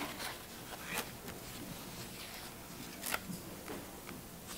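Quiet room tone with a few faint, short clicks and rustles, the most distinct about a second in and about three seconds in.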